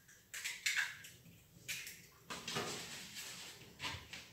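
Kitchen handling sounds: a white plastic mixing bowl and its utensils being moved about, giving several sharp clacks and knocks with a stretch of scraping in the middle.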